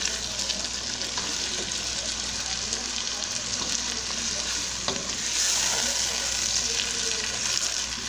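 Chopped onions, pimentos, tomatoes, shadow benny and garlic sizzling in hot oil in a pot as they are stirred: a steady frying hiss that grows a little louder past the halfway point.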